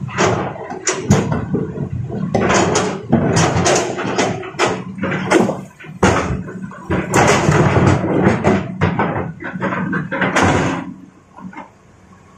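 Large rocks tumbling from an excavator bucket into a dump truck's steel bed, a dense run of heavy bangs and clatters over the steady hum of the diesel engine. The banging stops about eleven seconds in.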